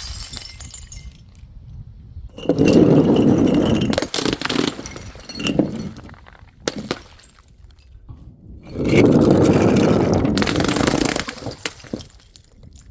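Glass shattering twice, each break followed by shards clinking and scraping as they scatter.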